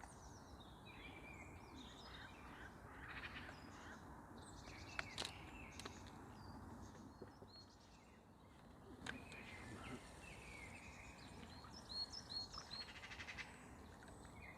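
Faint birdsong: small birds chirping and calling on and off over a steady low outdoor background hiss, with a quick run of short repeated notes near the end.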